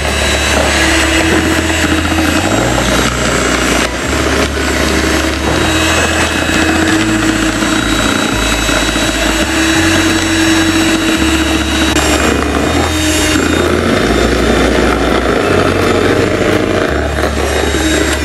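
Electric hand mixer running with twin wire beaters whipping eggs and sugar in a plastic bowl: a steady motor whine over the whisking of the batter. The batter is being beaten at speed until pale, thick and holding a ribbon trail.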